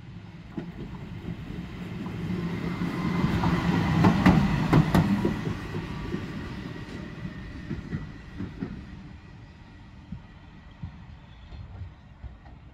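Fenniarail Sr3 (Siemens Vectron) electric locomotive running light past at speed: it rises to its loudest about four to five seconds in, its wheels clicking sharply over rail joints as it goes by, with a steady high whine, then fades away into the distance.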